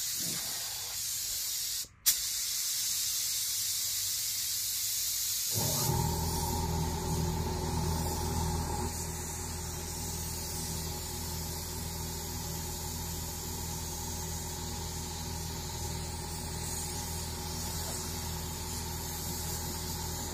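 Gravity-feed spray gun hissing steadily as compressed air atomises paint onto a car chassis, cutting out briefly about two seconds in as the trigger is let go. About six seconds in, a steady machine hum joins underneath, which fits the air compressor kicking on to feed the gun.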